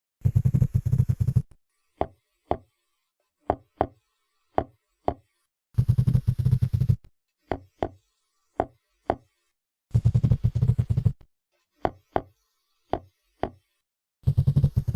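Seahorse clicks and growls. A low rattling growl of rapid pulses, about a second and a half long, comes roughly every four seconds. Between the growls are pairs of sharp single clicks about half a second apart.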